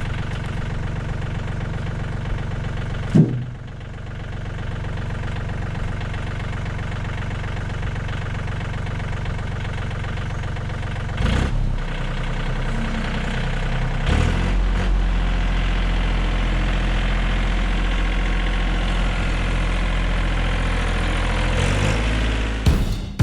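An engine idling steadily, with one sharp knock about three seconds in; the engine gets a little louder from about eleven seconds on. Music with a beat cuts in at the very end.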